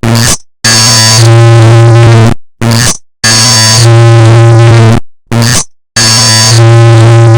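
Clock-tick sound effect digitally processed beyond recognition into very loud, distorted electronic buzzing. A cycle of a long buzzing block of about two seconds, a short burst and a brief silence repeats about every two and a half seconds, three times.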